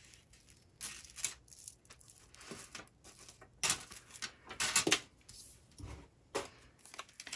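Rustling and crinkling of packaging being handled: a string of short, irregular scratchy bursts, a little louder a few seconds in.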